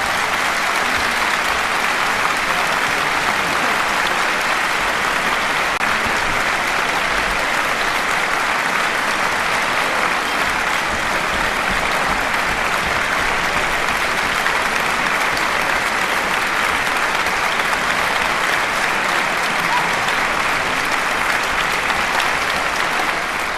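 Concert-hall audience applauding steadily: a sustained ovation.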